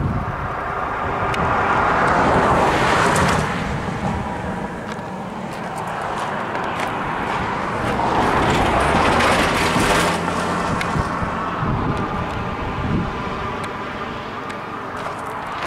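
Two road vehicles passing by one after the other, each swelling up and fading away over a few seconds, the first about two seconds in and the second about nine seconds in.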